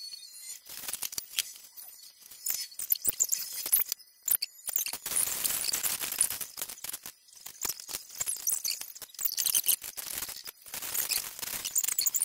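Small plastic LEGO pieces clicking and clattering on a hard tabletop as they are tipped out of bags and spread by hand, with stretches of rustling plastic bag and scattering pieces.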